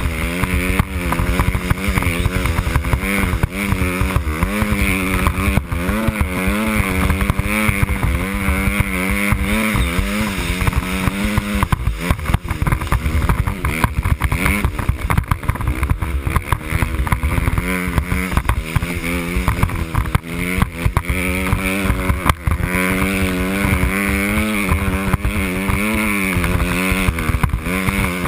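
Dirt bike engine running under way, its revs rising and falling over and over as the throttle is worked.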